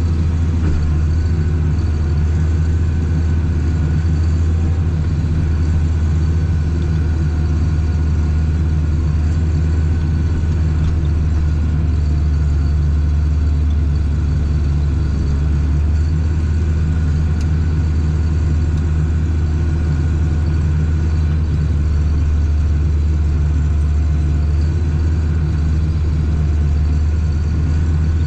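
Steady low drone of a Case tractor's engine heard from inside its cab, blended with a Claas forage harvester running close ahead. The running is even, with no revving or sudden noises.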